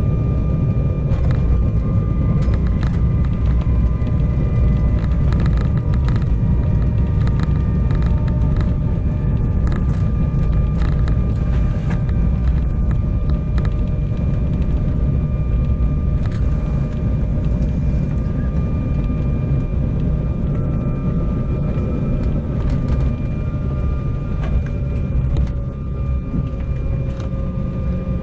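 Cabin noise of an Embraer regional jet rolling along the runway after touchdown: a steady low rumble, with an engine whine that slowly falls in pitch as the engines spool down. Scattered clicks and rattles sound through it.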